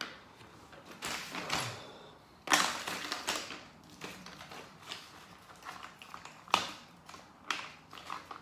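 Plastic opening tools scraping and clicking in the seam of an iPod Classic's case as it is pried open, with a handful of sharp clicks, the loudest about two and a half and six and a half seconds in.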